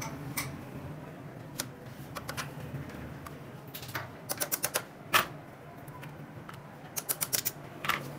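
Sharp metallic clicks and taps from hand tools working on a Honda CD 70's clutch worm assembly: two quick runs of about five clicks, one about four seconds in and one about seven seconds in, with a louder single click between them.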